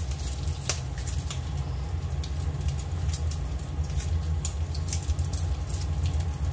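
Hot dog slices frying in oil in a pan, with scattered pops and crackles of spattering oil over a steady low hum.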